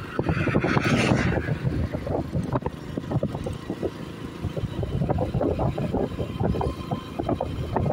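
Motorcycle riding at road speed, wind buffeting the microphone over the rumble of the bike and the road, with a louder rush of wind about a second in.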